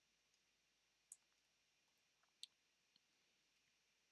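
Near silence broken by three faint, sharp clicks of computer keyboard keys, spread over a couple of seconds from about a second in.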